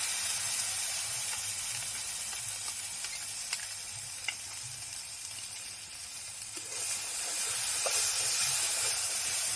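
Ginger-garlic, cumin and chilli paste sizzling in hot oil in a pan, with a few light clicks of stirring. The sizzle grows louder about seven seconds in.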